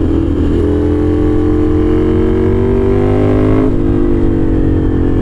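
Ducati Scrambler's V-twin running loud through an aftermarket exhaust with its baffle out, revving out under acceleration. The pitch climbs steadily, then drops abruptly about three and a half seconds in and holds.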